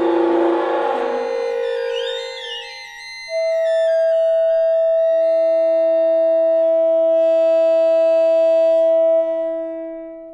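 Electronic ensemble music played on instruments designed and built by the composer: a dense texture fades out over a few gliding tones, then a long held tone sounds, joined by a lower one, and both die away near the end.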